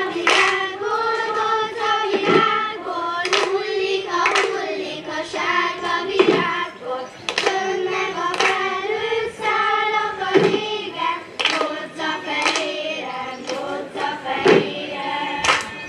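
A group of children singing a song together in unison, with sharp beats about once a second keeping time.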